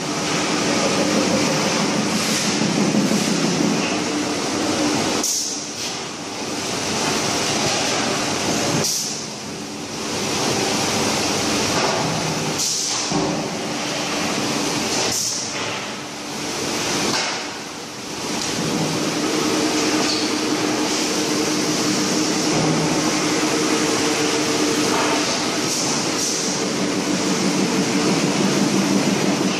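Steel drum factory machinery running: a loud, steady mechanical din that changes abruptly several times, with a steady hum coming in over the second half.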